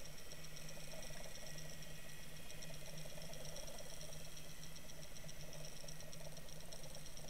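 Steady underwater noise picked up through a waterproof fishing camera's housing: a fine, fast rattle with a low hum and a thin high whine, unchanging throughout.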